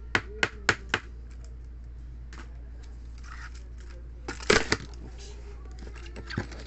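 Stiff plastic card holders and toploaders clicking and clacking against each other and the tabletop as they are handled and set down. There are four quick clicks at the start, a louder cluster a little past the middle, and a few lighter ones near the end.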